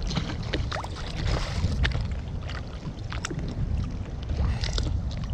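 Wind rumbling on the microphone and water slapping against an inflatable boat's hull, with scattered small clicks and taps from hands handling a caught flatfish and its tackle.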